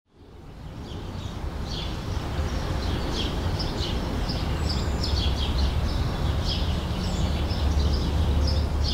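Outdoor ambience fading in: many small birds chirping in quick, short calls over a steady low rumble.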